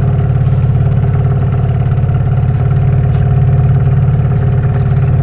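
Boat's outboard motor running steadily at low trolling speed, an even low hum with a rapid pulse.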